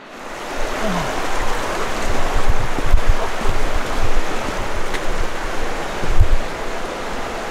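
Steady rush of a flowing river, with a few low thumps underneath.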